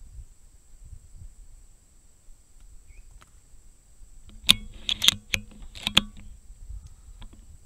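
A quick cluster of sharp metallic clicks and clacks about halfway through, three of them loud, as the Seneca Eagle Claw .25 air rifle's action is worked between shots.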